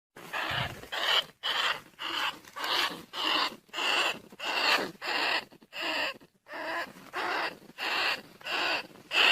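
Rats squeaking in a rapid series of short, harsh calls, a little under two a second: a recorded rat call played as a lure to draw field rats and bandicoot rats to a trap.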